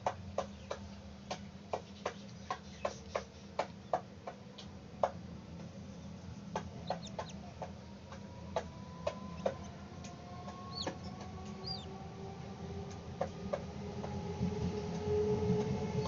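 A chick calling from inside a hatching chicken egg: a run of short, quick peeps about three a second, thinning out after about ten seconds. A steady drone grows louder in the second half.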